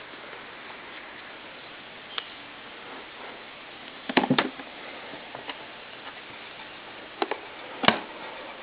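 A few scattered clicks and knocks from handling a portable record player, over a steady hiss; the loudest knock comes near the end.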